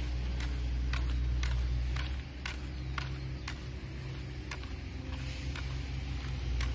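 Footsteps on a paved railway platform at a walking pace of about two a second, over a steady low rumble that eases about two seconds in.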